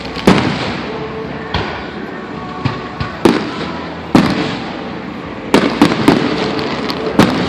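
Fireworks going off: about nine sharp bangs at irregular intervals, several close together near the end, over a continuous crackle.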